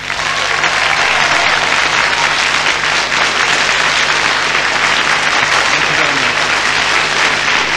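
An audience applauding steadily, starting just as the song ends.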